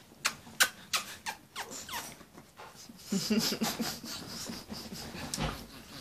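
Pekingese puppies licking a face: a quick run of wet smacks and licks in the first two seconds, then low, wavering grunts and snuffles close to the microphone.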